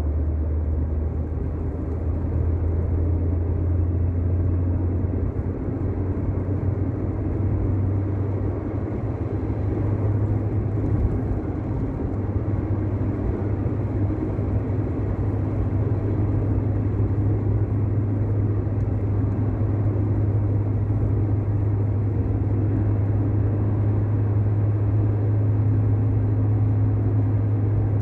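An old car driving on a rough road: a steady low engine drone with road rumble. The drone rises slightly in pitch a few seconds in, then holds.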